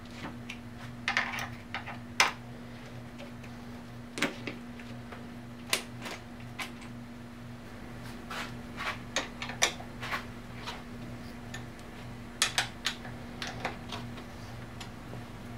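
Irregular small metallic clicks and taps of a steel L-key fitting into and turning the bolts of a motorcycle's handlebar clamp, over a steady low hum.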